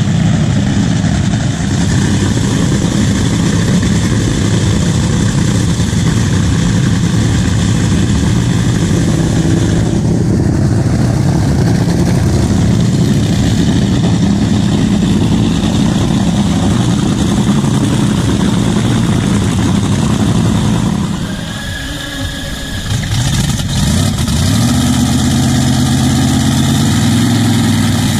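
A loud drag-racing engine idling nearby. It drops away briefly about two-thirds of the way through, then picks up again with its pitch rising slightly.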